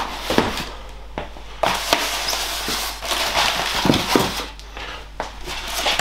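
Unpacking noises: a cardboard box slid and set down, then polystyrene packaging and a bubble-wrapped heater handled, with rustling, scraping and a few sharp knocks.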